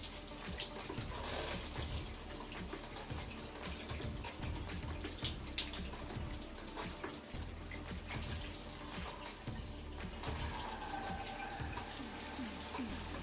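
Water from a filtered shower head running steadily and splashing, with a few short sharper splashes or knocks, one louder than the rest about five and a half seconds in.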